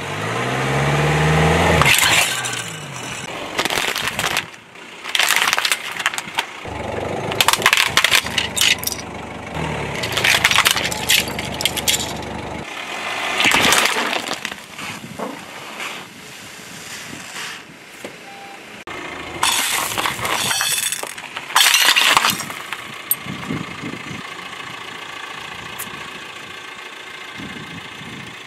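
A car tyre rolling over and crushing a series of objects, giving repeated loud cracking, crunching and shattering of plastic and glass containers. The car's engine runs underneath some of the crushes.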